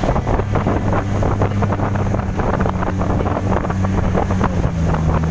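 Boat engine running steadily under way, with wind buffeting the microphone and water splashing and rushing along the hulls.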